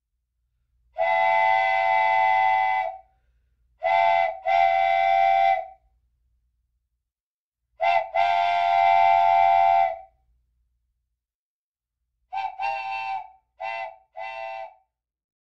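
Wooden train whistle blowing a chord of several pitches in separate toots. There is one long blast, then two short-then-long pairs, then four quick short toots near the end.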